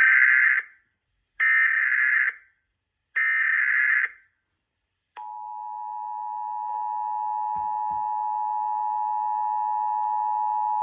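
Emergency Alert System header: three short bursts of SAME data tones about a second apart, then the EAS two-tone attention signal starting about five seconds in and holding steady. Together they announce that an emergency alert broadcast is beginning.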